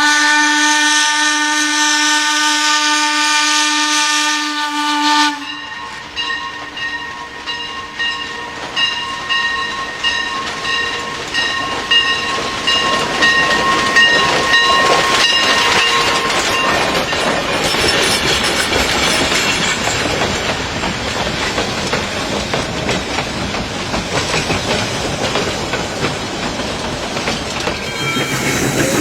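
A train whistle holds one steady chord and cuts off suddenly about five seconds in. A higher whistle tone with a regular beat follows, then gives way to the steady rushing noise of a train running on the tracks.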